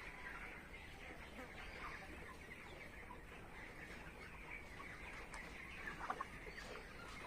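Chickens clucking in a busy, continuous chatter, with a couple of louder calls about six seconds in.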